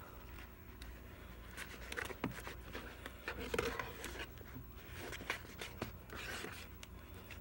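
A spoon stirring a thick shaving-cream slime mixture in a bowl: soft, irregular scrapes and squelches.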